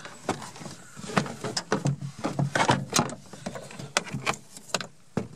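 Plastic rear package-tray trim panel being handled and worked into place in a car's rear window area, with irregular clicks, knocks and rubbing of plastic against the fittings.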